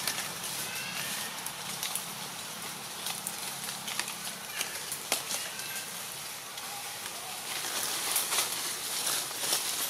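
Dry leaf litter crackling and rustling in irregular clicks and snaps as macaques shift and handle leaves. A faint low hum runs through the first half, and a few faint high squeaks come about a second in.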